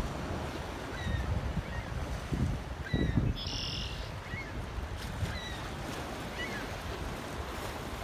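Wind and waves over open water, with wind buffeting the microphone in a couple of gusts and several short, high bird calls about once a second.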